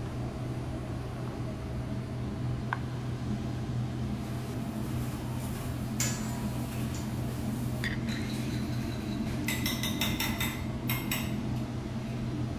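Metal chopsticks clinking and tapping against a ceramic plate, once about halfway through and then in a quick cluster of taps near the end, over a steady low hum.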